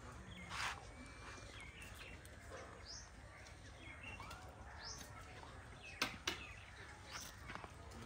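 Faint bird chirps, short and high, scattered over a low steady hum, with a few sharp clicks.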